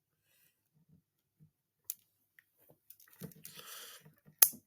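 A few faint clicks, then a short rustling noise, then one sharp, loud click near the end.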